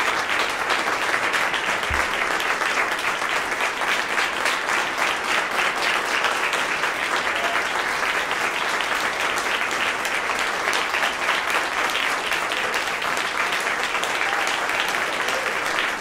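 Audience applauding: a dense, even run of many hands clapping that holds steady throughout.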